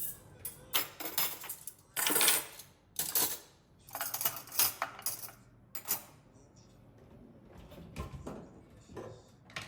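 Kitchenware being handled: a run of sharp clinks and knocks, thick through the first six seconds with the loudest around two seconds in, then a few fainter knocks near the end.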